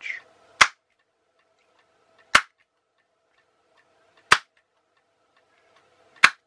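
Four sharp hand claps, about two seconds apart, toggling a sound-activated clap switch kit's LED on and off.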